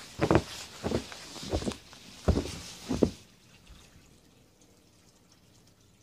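Footsteps crunching through deep fresh snow, about six steps at a walking pace, stopping just after three seconds in.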